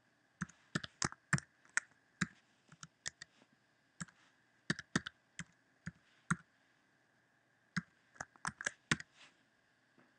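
Computer keyboard typing: single key clicks in short, irregular runs with pauses between them, as a string of characters is entered one key at a time.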